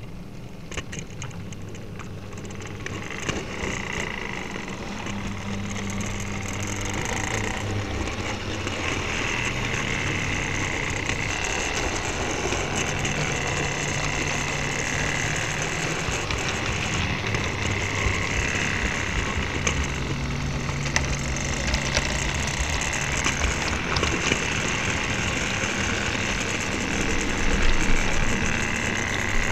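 Model railway train running along the track, heard from a small camera riding on it: a motor whine with wheels clicking over the rail joints. It gets louder over the first several seconds as the train picks up speed, then runs steadily.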